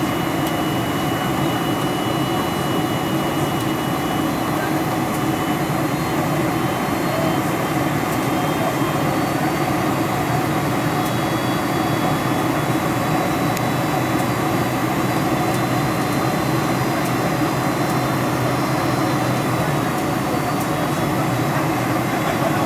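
Steady cabin noise of a Boeing 747-400 on final approach: airflow and its General Electric CF6 turbofan engines running, heard from inside the cabin over the wing, with thin high whine tones over the noise that change pitch partway through.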